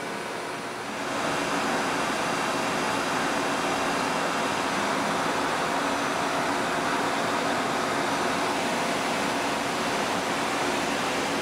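Haas VF-3 CNC vertical mill running: a steady mechanical rushing hiss that comes up about a second in, holds level, and drops away near the end.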